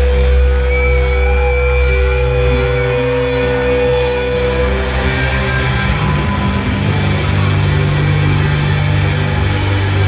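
Live rock band's electric guitar and bass ringing out long, loud held notes with no drum beat; the low notes change about six seconds in.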